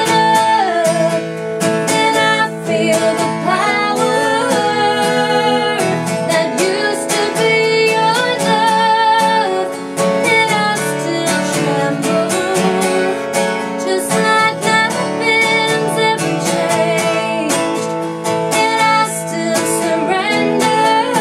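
A country song performed live: a woman singing over acoustic guitar.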